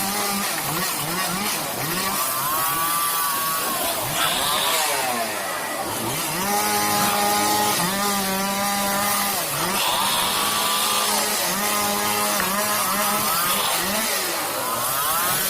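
Chainsaw engine cutting wood, revving up and dropping back about every second or two as it works through the cut.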